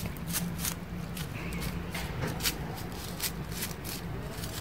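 Dry hay and fallen leaves rustling and crackling in quick, irregular crunches as a cat paws and noses through them.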